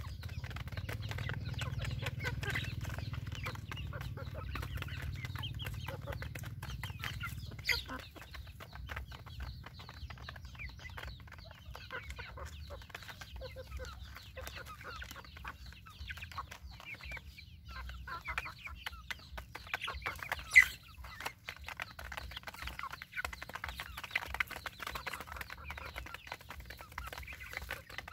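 Young chickens clucking softly while they peck grain from a metal basin, their beaks tapping in quick irregular ticks. A low rumble fades out about eight seconds in, and a single sharp knock, the loudest sound, comes about twenty seconds in.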